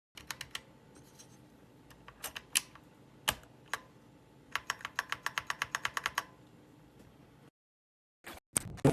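Mechanical keyboard switches being pressed and typed on, clicking: a few scattered keystrokes, then a fast run of about eight a second, then a few louder clacks near the end.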